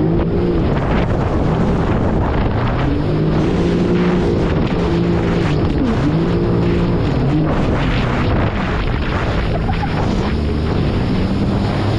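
Jet ski engine running under way, its pitch rising and falling again and again with the throttle, with wind buffeting the microphone.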